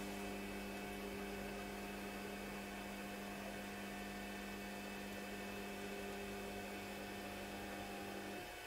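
Hictop AL13-310 3D printer's stepper motors running as the gantry lowers the print head toward the bed to begin manual bed leveling: a steady hum of several constant tones that cuts off abruptly near the end.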